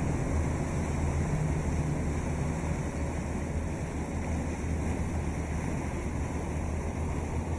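Boat engine running steadily, a low hum, with water rushing past the hull and wind on the microphone.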